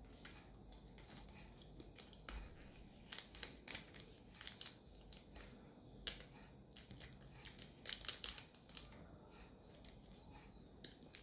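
Faint crinkling and clicking of a thin plastic jelly-candy tube squeezed at the mouth, in short scattered crackles, thickest about three seconds in and again around eight seconds.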